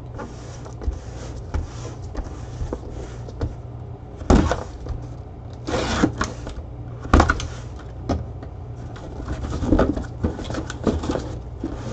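Cardboard box handled and opened by gloved hands: rustling and scraping of the flaps, with several sharp knocks as the box is turned and set down, the loudest about four and seven seconds in.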